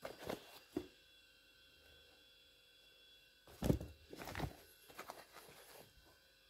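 Used sneakers being handled on a carpet: a few dull, irregular thumps and rustles as shoes are picked up and moved about, the loudest pair a little over halfway through.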